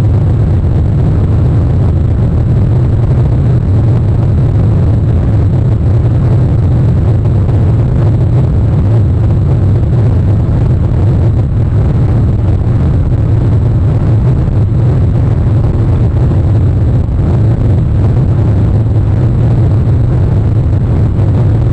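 Steady, loud low rumble of wind and rain on an outdoor nest-camera microphone, unchanging throughout.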